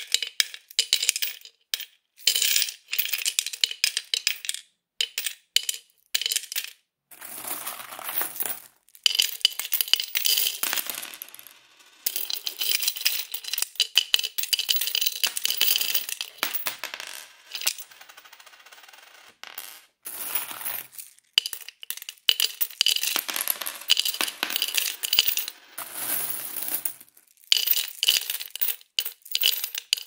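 Coins being put into a piggy bank that is already full of coins, clinking and rattling against the coins inside, in bursts of rapid clinks with short pauses between.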